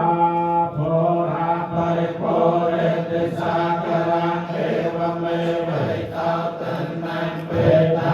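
Buddhist chanting in Pali: several voices recite together on one steady, drone-like pitch, with brief breaks for breath.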